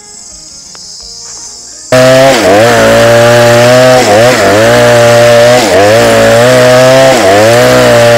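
Small two-stroke chainsaw ripping a log lengthwise, running loud and steady under load, its engine pitch dipping and recovering about five times as the cut bogs it down. Before it starts, about two seconds in, only faint insects chirring.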